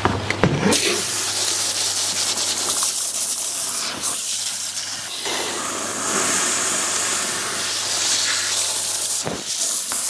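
Dyson hair dryer blowing air, a steady rushing hiss that starts just under a second in, shifts as the airflow moves, and cuts off near the end.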